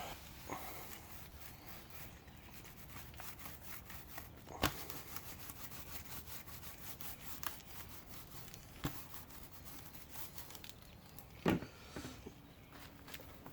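Faint rubbing and fine crackling of hand fiberglass layup work, wetting out fiberglass mat with resin, broken by three sharper knocks spread through.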